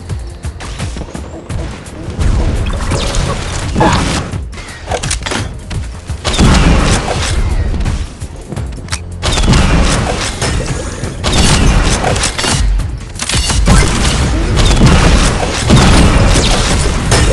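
Consumer fireworks going off: rapid crackling and repeated booms, growing denser and louder about six seconds in and again near the middle.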